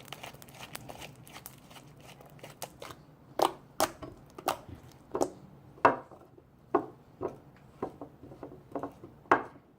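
Freshly made clear glue slime being kneaded and stretched by hand, giving a run of short sticky clicks and pops, faint at first and louder from about three seconds in, roughly one or two a second.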